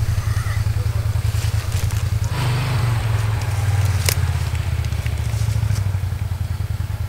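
Engine of an off-road buggy running close by with a steady low drone; its note rises about two and a half seconds in as it pulls away. A single sharp click sounds about four seconds in.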